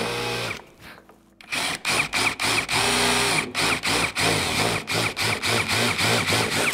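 Worx 20V cordless drill spinning a countersink bit into a pre-drilled hole in an MDF block, countersinking it for a screw head. The motor whine runs steadily at first, pauses briefly about a second in, then comes in many short trigger bursts that rise and fall in pitch.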